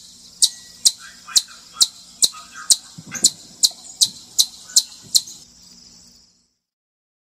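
Chipmunk giving a repeated, high, sharp chip call, about two chips a second, which stops about five seconds in.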